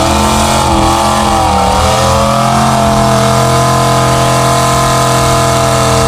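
Old truck's engine held at high revs under load as it churns through a mud pit. Its pitch wavers for the first couple of seconds, then holds steady, and the note cuts off suddenly at the very end.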